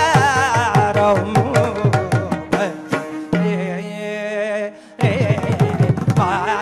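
Live Carnatic vocal music in raga Abheri: a male voice sings ornamented, wavering phrases over regular hand-drum strokes. About halfway through, the strokes stop and a single note is held for a second or two, then the singing and drumming come back in near the end.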